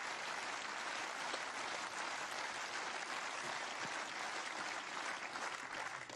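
Tennis crowd applauding, an even clatter of many hands that dies away near the end.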